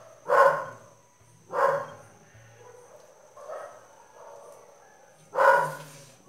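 A dog barking: four single barks spread over about six seconds, the third fainter than the others.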